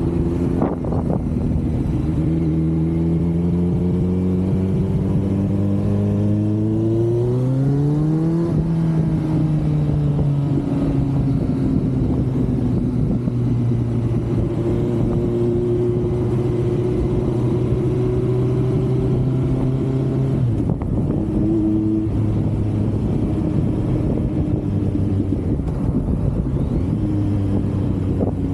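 Kawasaki Z900 inline-four engine and exhaust heard from on board while riding, with wind rushing over the microphone. The engine pulls up steadily in pitch for several seconds under acceleration, then holds a steady cruise, and its pitch drops suddenly about twenty seconds in.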